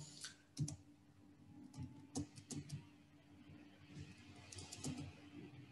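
Faint, irregular clicking of a computer keyboard and mouse, a dozen or so light taps, over a low steady hum.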